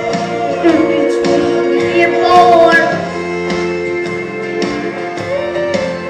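A young boy singing into a handheld microphone over backing music. His voice is loudest about two and a half seconds in.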